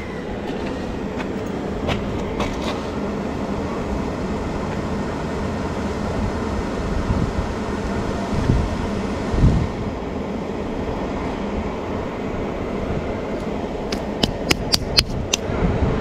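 Rooftop gas package unit running steadily on test, its newly replaced draft inducer motor running. A few sharp clicks near the end.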